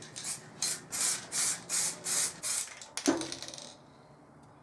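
Aerosol spray can of matte black acrylic paint hissing out in a quick series of short bursts, about two a second, for around three seconds, followed by a single knock.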